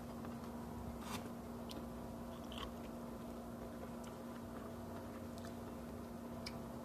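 Someone eating, with a few faint, scattered clicks of chewing and biting over a steady low hum.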